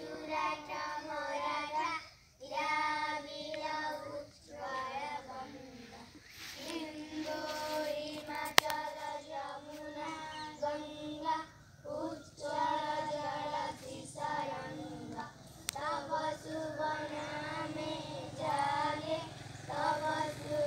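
A group of children singing a patriotic Hindi-Odia song together without accompaniment, in phrases with short breaks. One sharp click comes about eight and a half seconds in.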